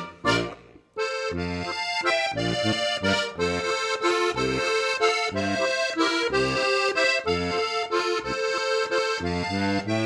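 Instrumental background music with a regular bass beat, starting about a second in after a brief fading rush of water noise.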